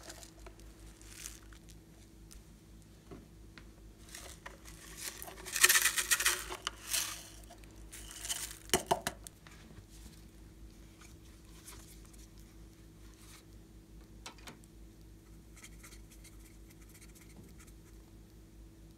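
Small foam beads poured from a plastic container, pattering and rattling onto a bowl of glossy slime, with the densest pattering a little past the middle and a shorter burst soon after, then only a few light ticks.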